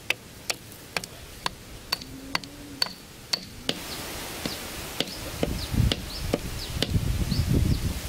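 A wooden stake being knocked into dirt with the back of a hatchet, about two sharp knocks a second for the first few seconds. After that, irregular low handling noise with faint short high chirps.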